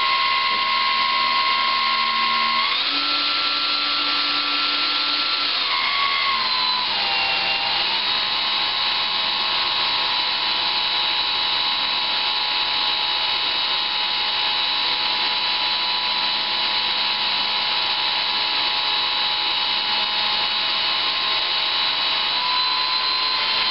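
Brushless electric motor of a ParkZone Super Decathlon R/C plane spinning a Master Airscrew 8x6 three-blade propeller on a static bench test, running at part throttle as a steady whine. The pitch steps up about three seconds in, drops back and dips lower for a couple of seconds, then holds steady and rises slightly near the end as the throttle is changed.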